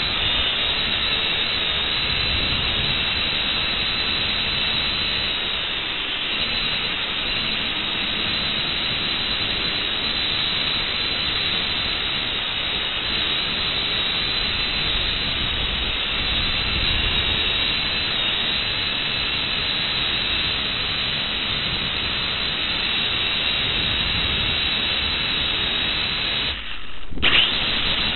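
Steady rushing hiss on an FPV drone's recording, cutting out for a moment about 27 seconds in.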